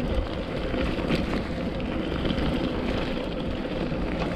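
Mountain bike rolling over a rough, stony farm track: a steady rumble of tyre noise and wind on the microphone, with a few sharp rattles from the bike over the bumps.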